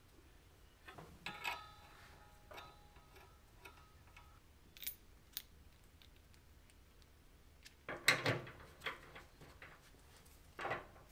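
Scattered clicks and light metallic knocks of gas and power fittings being handled and fitted together while a TIG torch is hooked up: argon regulator on the cylinder, brass hose fitting, and the torch's power connector plugged into the welder. The loudest cluster of knocks comes about eight seconds in, with another sharp knock near the end.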